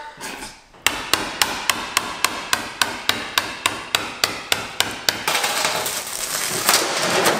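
A hammer rapidly striking a chisel, about four blows a second, cutting the shattered laminated windshield out of an AMC Eagle. After about five seconds the blows stop and give way to a crackling crunch of broken glass as the sheet is pulled free.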